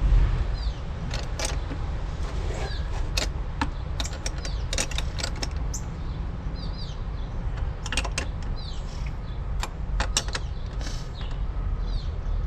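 Irregular metallic clicks and scrapes from a wrench working the bolt of a new zinc battery terminal clamp, tightening it on the post.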